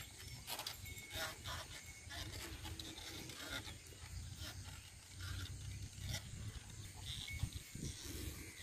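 Faint outdoor field ambience: a low steady rumble with scattered short clicks and a few brief chirps.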